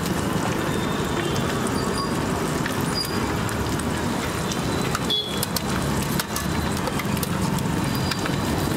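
Egg frying in oil on a flat iron griddle, sizzling with faint crackles, over a steady low rumble of street traffic.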